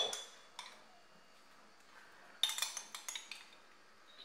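A metal spoon clinking and scraping against a glass jam jar and a stainless steel pot as jam is scooped out: one clink about half a second in, then a quick run of clinks about two and a half seconds in.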